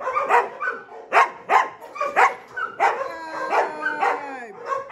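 A puppy barking in a quick run of short, high yips, about two to three a second. About three seconds in, it gives a long whine that falls in pitch.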